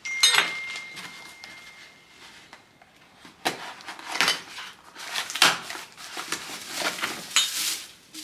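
A sharp knock at the start that rings on briefly as a thin high tone, then a knife slitting the packing tape on a cardboard box and the box being torn open, with scraping and rustling of cardboard and wrapping.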